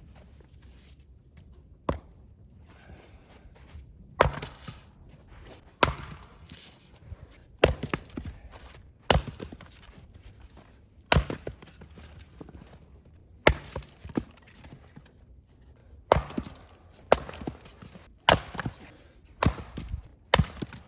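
Firewood being chopped and split with an axe: about a dozen sharp chops, one every one to two seconds, some followed by a short crackle of wood splitting apart.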